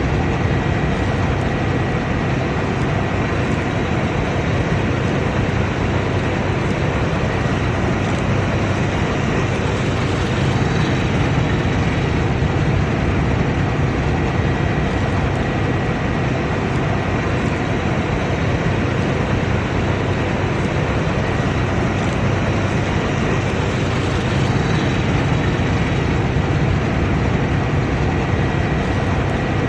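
Combine harvester running steadily under load, a dense engine and machinery drone with a faint thin high whine held throughout.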